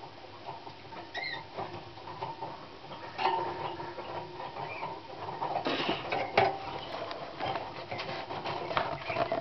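Young Slavujar (nightingale-song type) canary singing: a run of quick clicking, rattling notes mixed with short whistled phrases.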